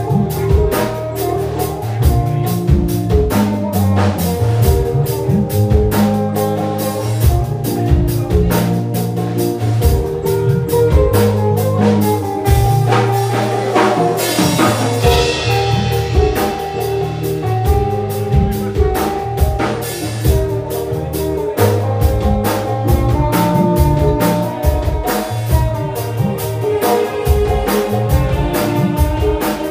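Background music with a steady drum beat under held instrument notes, with a brief bright swell about halfway through.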